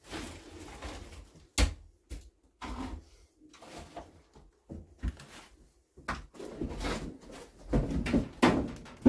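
Rummaging: irregular knocks, scrapes and clatter of things being handled and moved about. There is a sharp knock about a second and a half in, and louder knocks near the end.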